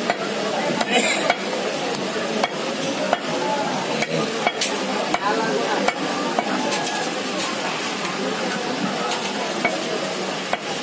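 Heavy butcher's knife chopping raw chicken on a wooden log chopping block: sharp, irregular knocks every second or so, over a steady hissing background.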